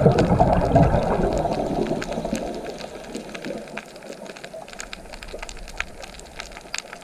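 Rushing, splashing water, loud at first and fading over the first few seconds, then a quieter hiss with scattered drip-like ticks.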